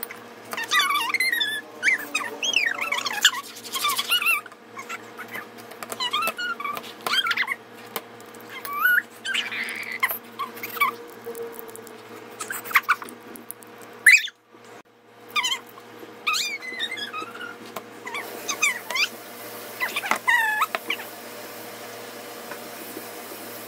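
A pet animal whining in short, high, sliding calls, repeated every second or two, with a sharp click about fourteen seconds in.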